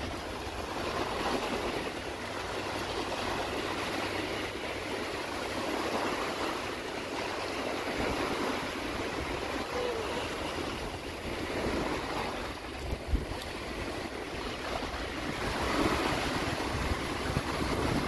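Small waves breaking and washing up onto a sandy beach, swelling and easing every few seconds, with wind rumbling on the microphone. A single short knock about thirteen seconds in.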